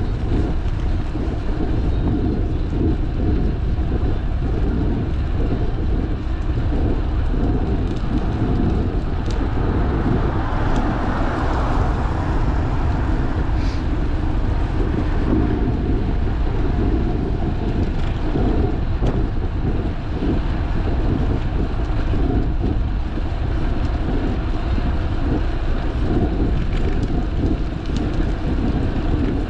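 Wind buffeting the microphone of a bicycle-mounted action camera, with tyre rumble on asphalt, loud and steady throughout. A car passes about ten seconds in.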